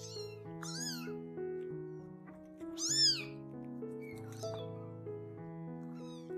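Small kittens mewing: about five short, high-pitched mews, the loudest about three seconds in, over background music with held notes.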